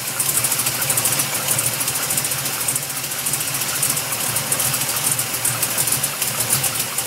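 Engine idling steadily with a rapid, even, high-pitched ticking over the running note, which the owner suspects is a bad valve lifter.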